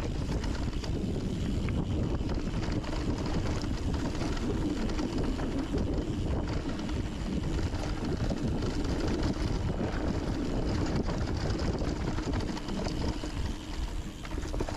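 Wind rushing over the microphone and mountain bike tyres rolling over a dirt and rock trail, a steady noisy rumble that eases off near the end.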